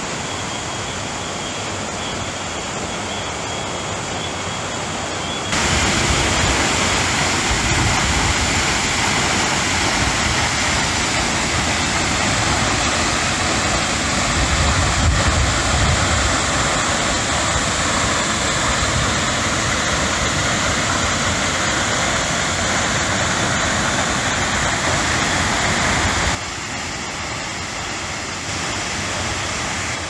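Todoroki Falls' water rushing and splashing into its rock pool, a steady loud rush of falling water. It steps up sharply about five seconds in and drops back to a lower level a few seconds before the end.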